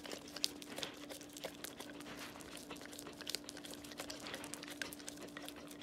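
Saint Bernard licking and smacking peanut butter off a metal spoon: faint, irregular wet tongue clicks and smacks, over a steady low hum.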